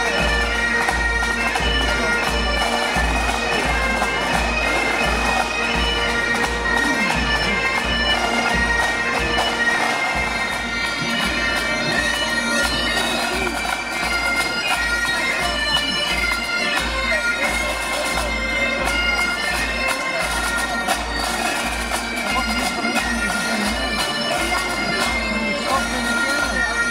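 A school pipe band playing a march: Great Highland bagpipes sound a tune over their steady drones, with a regular bass-drum beat of about two strokes a second underneath.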